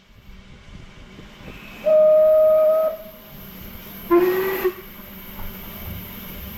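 Steam locomotive whistle: a steady blast about a second long, then a second, shorter and lower blast that rises slightly in pitch.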